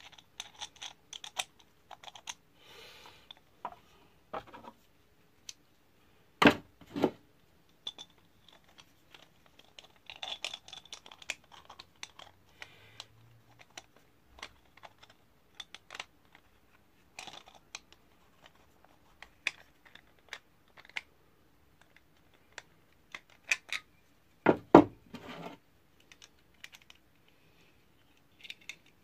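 Irregular small metal clicks and scrapes of a steel nut being threaded onto a bolt in a wooden handle and turned with pliers, with a few louder knocks about six seconds in and again near the end.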